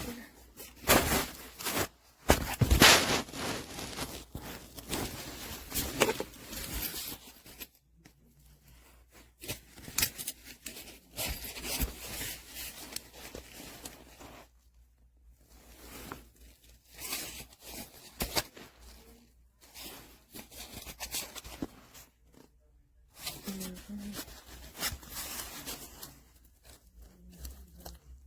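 A laptop backpack being handled: irregular bursts of rustling, scraping and tearing-like noise, broken by short pauses.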